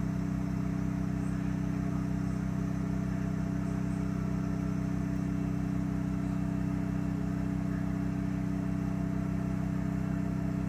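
An engine idling steadily: a low, even drone with a fast regular pulse that holds unchanged throughout.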